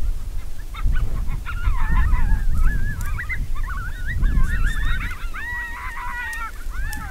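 Coyote yipping and howling: a long run of high, quavering yips and short howls, with a longer held howl near the end, over a low wind rumble on the microphone.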